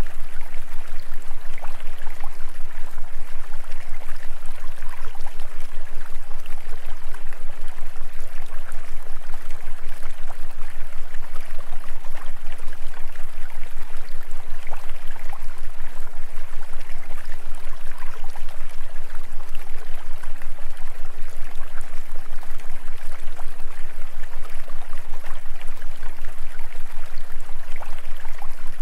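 Steady running-water sound like a babbling stream, laid over a low, constant hum that throbs in a fast, even pulse.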